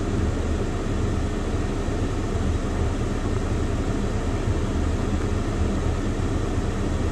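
Steady road and engine noise inside a moving vehicle's cabin, a low even rumble with a faint steady hum.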